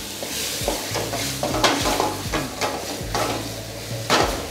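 Curry sizzling in a steel wok while a metal ladle stirs it, with several scrapes and clanks of the ladle against the wok; the loudest clank comes near the end.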